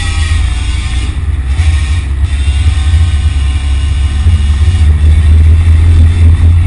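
Road traffic: cars running past, under a heavy, steady low rumble.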